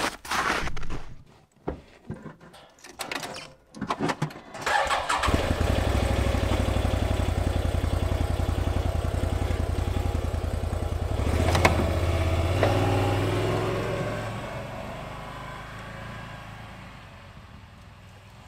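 Can-Am Defender HD10 side-by-side's V-twin engine starting about five seconds in and running with a steady low rumble, then fading away as the machine drives off. Before the start there are irregular rustles and knocks close to the microphone, and there is a sharp click a little past the middle.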